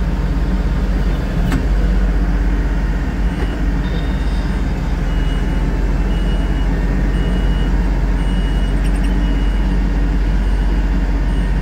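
LS tractor's diesel engine running steadily as it drives across a field. From about five seconds in, a short high electronic beep repeats about once a second.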